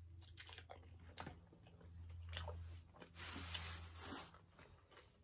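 Faint, close-miked chewing of a mouthful of wet burrito: a few small wet clicks and soft smacking, over a low steady hum.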